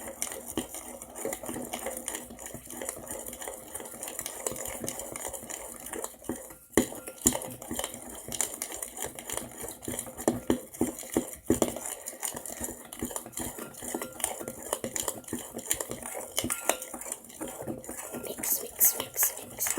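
Spoon stirring a thick batter of glue, cornstarch and body wash in a mixing bowl, scraping and clinking against the bowl in quick, irregular strokes, with a brief pause about seven seconds in.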